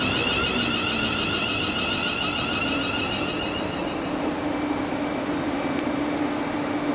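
A train running past, a steady rail noise with a high wavering whine that fades about four seconds in, leaving a lower steady hum.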